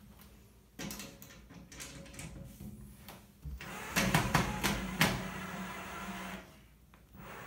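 Knocks and rattles from a sliding closet door and its roller hardware being handled and adjusted on its track, with a loud cluster of knocks about four to five seconds in.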